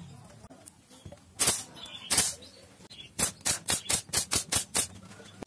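Pneumatic nail gun nailing plywood strips: two sharp shots a little over a second apart, then a quick run of about eight shots, about five a second.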